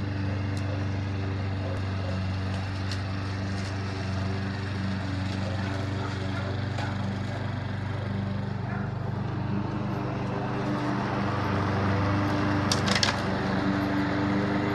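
Gasoline walk-behind lawn mower engine running steadily as it is pulled along cutting grass, a little louder in the second half. A brief clatter of clicks near the end.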